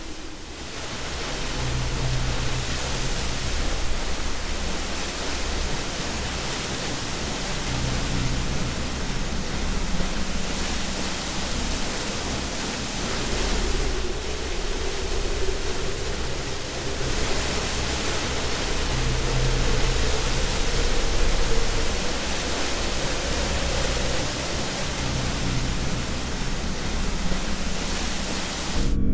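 Waterfall rushing: a steady, dense wash of falling water that swells up over the first second or so, with faint low droning tones underneath.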